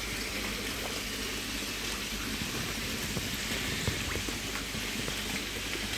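Steady light pattering and splashing of water on the surface of a koi pond.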